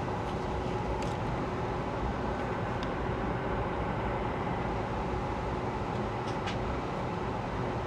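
Steady cabin hum and rumble of a Boeing 757-200 with Pratt & Whitney PW2037 turbofans, heard from inside the cabin, holding an even level. A few faint clicks are heard in the cabin.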